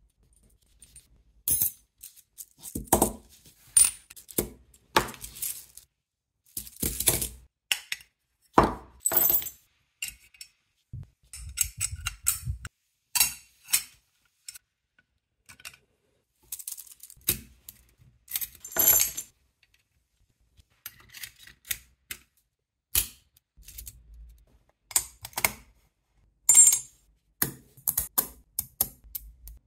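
Metal parts of a jet engine model kit clinking and tapping as they are handled and fitted together: irregular clicks and knocks with pauses between, several of them ringing brightly like struck metal.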